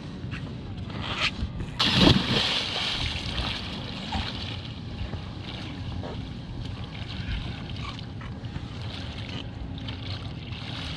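A person jumps into lake water holding a floating gun case, with a big splash about two seconds in. Water then sloshes and splashes around him as he swims with the case.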